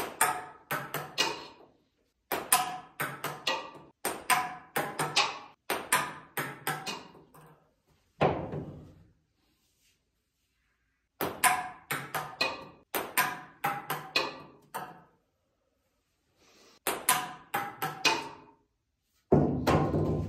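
Clusters of sharp, briefly ringing struck hits, three to six in quick succession, separated by total silence; the longest gap, about two and a half seconds, falls mid-way. The dead silence between clusters marks them as a sound track laid over the picture, not room sound.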